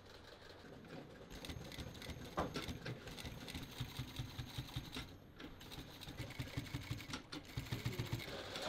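Industrial lockstitch sewing machine stitching through leather and woven webbing, running with a fast, even stitching rhythm. It starts about a second and a half in and stops briefly twice before running on.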